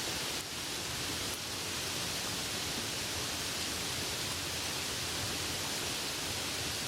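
Soft rain falling, a steady even hiss with no separate drops standing out.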